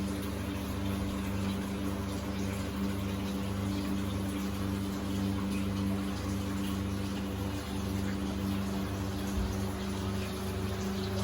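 Boat engine running with a steady, even hum. Over it runs a steady rush of water.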